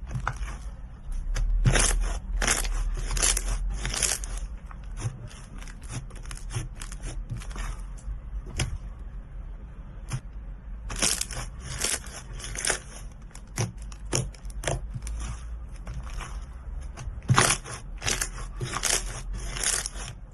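Slime being squeezed and pressed by hand, giving irregular runs of sharp sticky clicks and small pops. The sound stops abruptly near the end.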